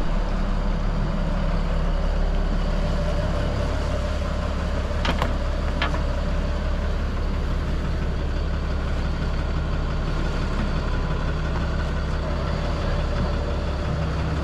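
Fire rescue boat's engines running steadily at low speed, a low even hum, as the boat motors out of its slip. Two faint clicks about half a second apart a little after five seconds in.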